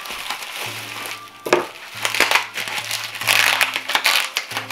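Plastic bubble wrap crinkling and rustling as a wrapped item is handled and pulled out of a cloth bag, loudest in the second half, over background music with low held notes.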